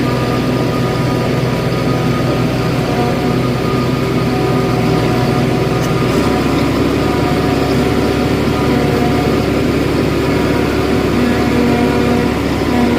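Heavy farm machinery engine running steadily under load, a continuous hum whose low tone shifts about six seconds in.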